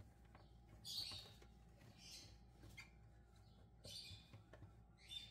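Damp microfibre cloth wiping the plastic housing of a juicer/blender base: faint, brief rubbing swishes, about four strokes.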